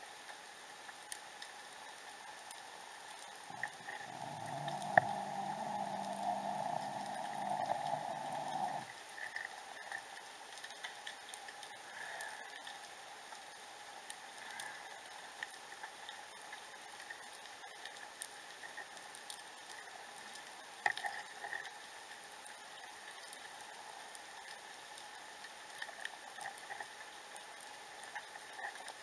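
Underwater ambience picked up by a submerged camera: a steady hiss with scattered clicks and crackles. From about four to nine seconds a louder low hum joins in, then cuts off suddenly.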